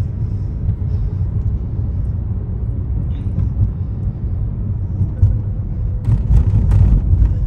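A car driving along a road: a steady low rumble from the tyres and engine, with a few brief hissy crackles about six to seven seconds in.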